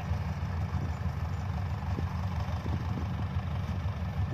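Kubota DC-70 rice combine harvester's diesel engine running steadily with a low, even rumble.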